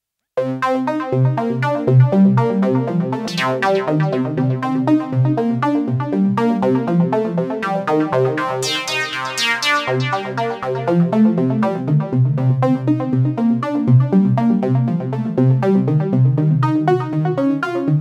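Sequential OB-6 analog polyphonic synthesizer, heard dry with no added effects, starting about half a second in on a fast sequenced pattern of short repeated bass notes with higher notes above. The tone turns bright and cutting twice, briefly a few seconds in and for longer near the middle.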